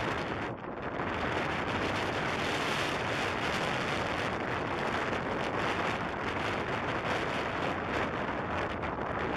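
Steady rushing of wind on the microphone, dipping briefly about half a second in.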